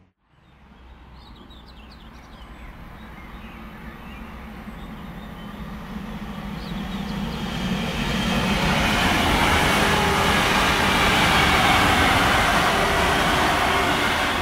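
Electric multiple-unit passenger train approaching and passing close by on a main line. Its wheel-on-rail rumble and hiss grow steadily louder over the first eight seconds, then stay loud as it goes past. A few bird chirps sound faintly near the start.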